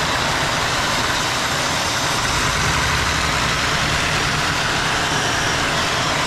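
Vacuum cleaner running steadily, its suction driving a LEGO six-cylinder radial vacuum engine: a loud, even rush of air over a low mechanical hum.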